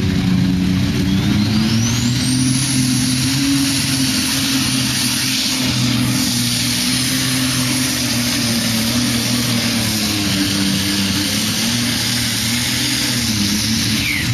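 Competition pulling tractor's engine running loud and steady at full throttle as it drags the weight-transfer sled down the track. A high whine climbs about two seconds in and holds over the engine note.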